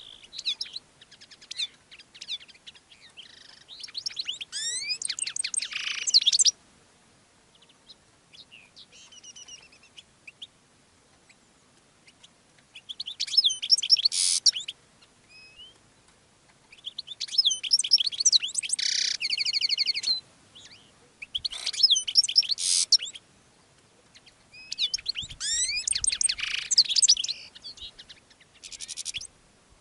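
Male European goldfinch singing its courtship song to a female: rapid, tinkling twittering phrases of a few seconds each, about five in all, with short pauses between.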